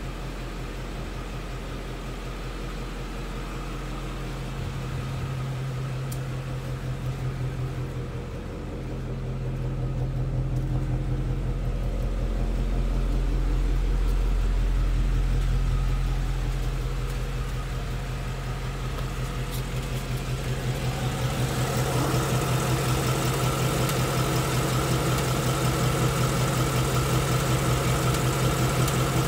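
2016 Mustang GT's second-generation 5.0 Coyote V8 idling steadily, freshly oil-changed, with the light 'typewriter' ticking that the owner puts down to the new oil. About 21 seconds in the sound grows brighter and a little louder.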